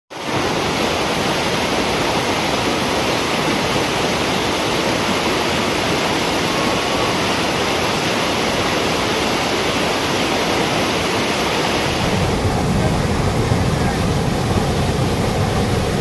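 A waterfall in monsoon flood, with heavy muddy water pouring over rocks in a steady roar. About twelve seconds in, the rush turns deeper and heavier.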